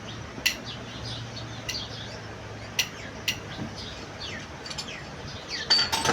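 Small birds chirping repeatedly in short falling calls. A few sharp clinks sound over them, about half a second in, near three seconds in and in a cluster near the end.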